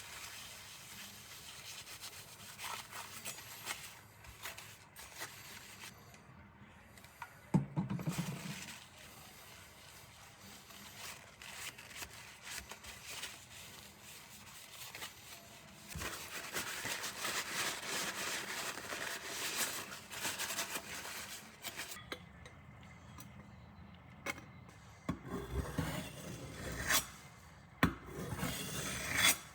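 Steel nakiri blade scraped and rubbed against an abrasive in repeated strokes, grinding down the damaged edge. A low thump sounds about eight seconds in.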